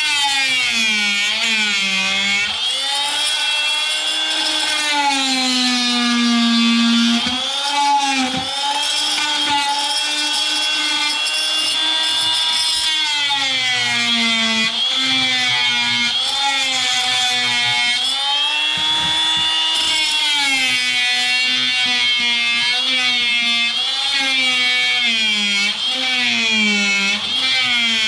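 Corded oscillating multi-tool running and cutting into wood, its motor whine continuous and wavering, dipping and rising in pitch again and again.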